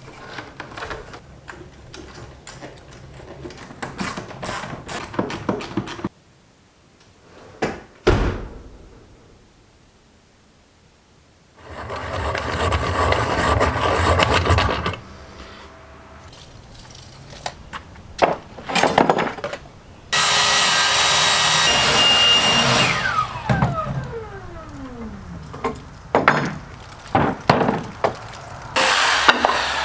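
Woodworking on a wooden speaker box: a run of knocks and clicks, a sharp thump, then a power tool running twice for a few seconds each, the second time winding down with a falling whine, followed by more knocks.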